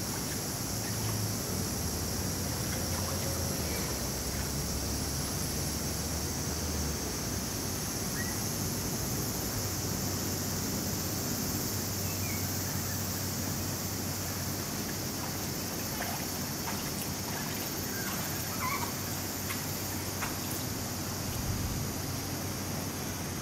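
Steady outdoor background noise: a constant high-pitched hiss over a low hum, with a few faint short chirps now and then.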